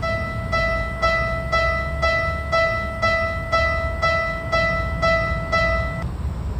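Railroad crossing warning bell ringing 'kan kan', a ringing tone struck about twice a second, which stops about six seconds in. A low steady rumble runs underneath.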